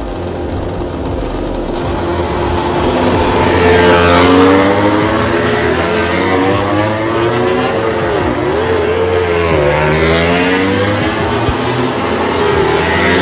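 Several MotoGP race bikes' four-cylinder engines revving and accelerating away as they pull off one after another. Their notes rise and fall and overlap, and get louder about four seconds in.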